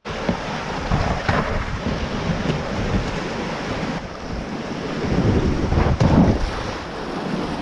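Steady rush of a fast, swollen whitewater river, with wind buffeting the helmet-camera microphone. About six seconds in, a whitewater kayak slides off the grassy bank into the current with a splash.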